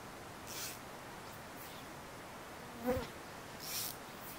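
A flying insect buzzing briefly past the microphone about three seconds in, a short wavering buzz with a low bump, over soft swells of high hiss.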